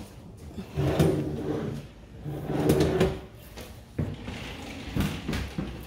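Built-in wardrobe fittings sliding on their runners: two long rumbling slides about a second each, then a few light knocks near the end.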